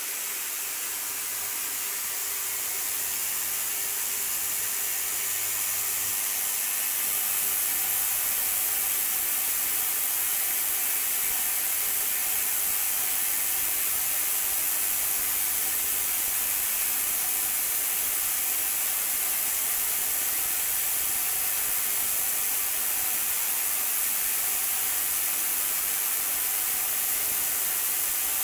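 Ultrasonic cleaning bath running: a steady, high hiss of cavitation in the water with faint steady tones beneath, building over the first several seconds and then holding level. The cavitation is eroding aluminium foil held in the bath, the standard foil test of a bath's performance.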